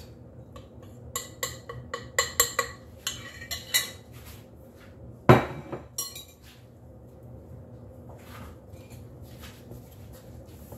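Glass bowls clinking and knocking as flour is tapped out of one glass bowl into another glass mixing bowl: a quick run of sharp clinks over the first few seconds, then one louder knock about five seconds in as the emptied bowl is set down.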